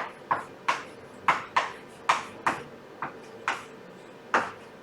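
A writing tool striking the writing surface in about ten sharp taps at uneven intervals, each dying away quickly, as an equation is written out.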